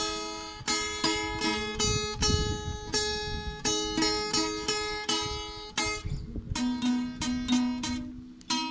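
Acoustic guitar played solo, plucked single notes and chords following one another a few times a second, each ringing and fading. There is a short lull a little after six seconds, then lower bass notes come in.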